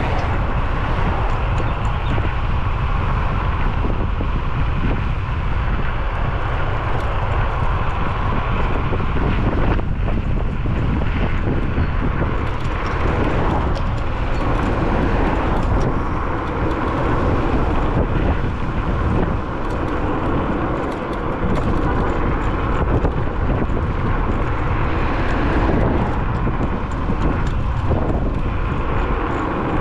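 Steady wind rumble on the microphone, mixed with tyre and road noise from an electric scooter riding along a paved road.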